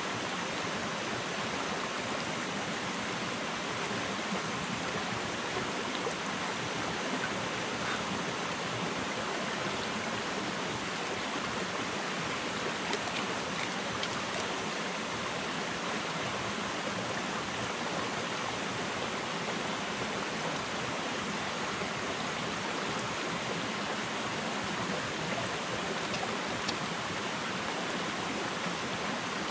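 Flowing water rushing steadily, with a few faint clicks.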